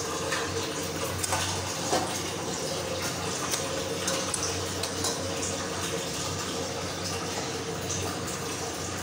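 Sour fish curry bubbling at a steady boil in a steel pan, with a few sharp clinks of a ladle against the pan in the first two seconds.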